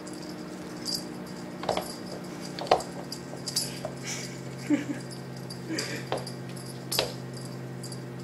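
A pet's short, scattered cries and small knocks, about nine in all, over a steady hum.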